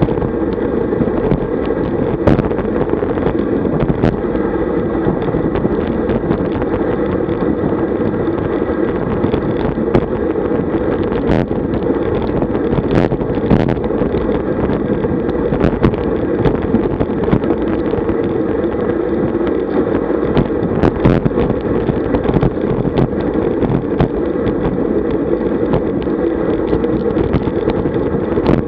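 Wind rushing over the microphone of a bike-mounted camera on a road bike riding at about 45 km/h, a steady loud rush with tyre noise from the tarmac underneath. Scattered sharp clicks and knocks come through every second or two.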